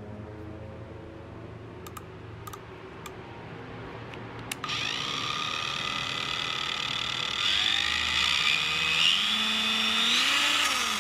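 Parkside PWSA 20-Li C3 cordless angle grinder running free with no load after a few sharp clicks of its switch. The motor whine starts suddenly about halfway in and climbs quickly to a steady pitch. It then steps up in pitch a few times near the end as the speed is turned up.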